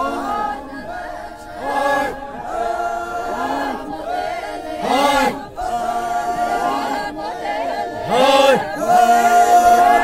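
A group of men singing a traditional Naga chant in unison, with long held notes broken by short rising-and-falling calls. It grows loudest over the last two seconds.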